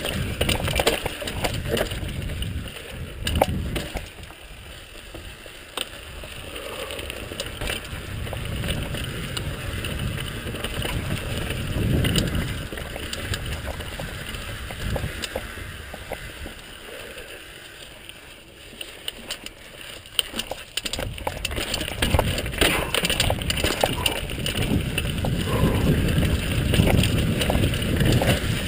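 Mountain bike descending a rocky dirt trail: tyres rolling over dirt and rock steps, with frequent rattles and knocks from the bike, and wind rumbling on the microphone. The rumble swells and eases with speed, loudest in the last third.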